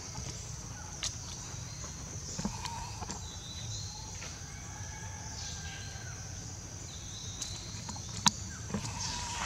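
Steady high-pitched insect drone with a low rumble beneath it, broken by a few sharp taps, the loudest about eight seconds in.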